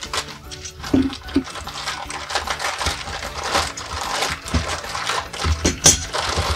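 Thin clear plastic bag crinkling and rustling in the hands as it is cut open with a utility knife, a dense run of small crackles.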